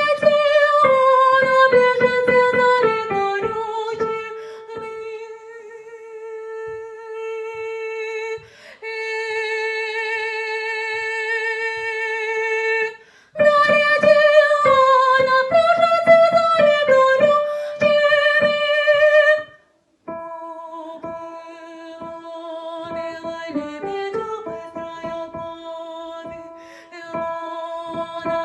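A high voice singing a slow song with long held, wavering notes over plucked guitar accompaniment. The music breaks off briefly about thirteen seconds in and again near twenty seconds.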